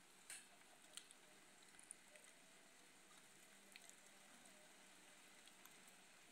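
Light rain falling: a faint, even hiss with a few scattered sharp drip ticks, the strongest about a third of a second in.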